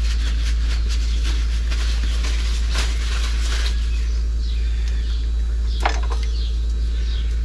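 Light clicks and taps of metal parts being handled during motorcycle brake caliper work, with a sharper click about six seconds in, over a steady low hum. Faint bird chirps can be heard in the second half.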